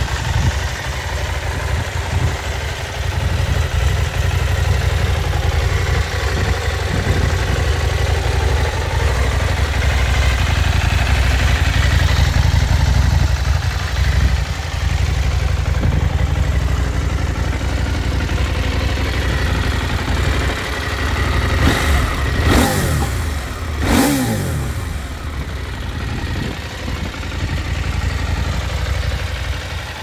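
KTM 790 Adventure R's parallel-twin engine idling steadily, with two quick throttle blips about two seconds apart near the end, the revs rising and falling sharply each time.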